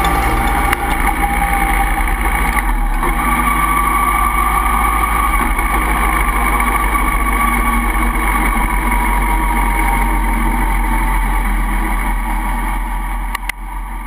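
Honda CB1300SB's inline-four engine running steadily at low road speed in traffic, heard from a camera mounted on the motorcycle, with a slow drift in engine pitch. The sound fades out near the end.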